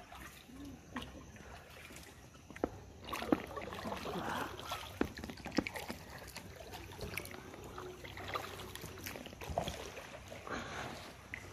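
Canoe paddle strokes in calm water: splashing and dripping, with scattered sharp knocks and clicks that grow busier and louder about three seconds in.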